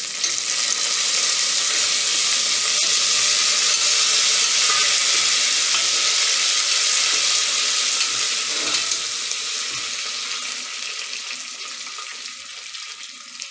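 Curry leaves and whole spices sizzling hard in hot oil in a pressure cooker pan, stirred with a steel ladle. This is the tempering stage of cooking. The sizzle swells just after the leaves go in, then slowly dies down.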